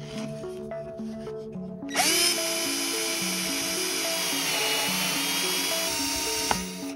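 Power drill turning a tap to cut threads into an aluminum rail. Its motor starts about two seconds in, whines steadily, dips briefly in pitch under load past the middle, then stops near the end. Background music plays underneath.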